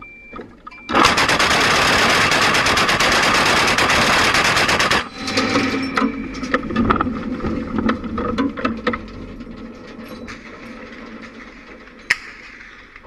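ZSU-23-4 Shilka's four 23 mm autocannons firing one continuous rapid burst of about four seconds, starting about a second in. Scattered cracks and echoes then die away over several seconds, with one more sharp crack near the end.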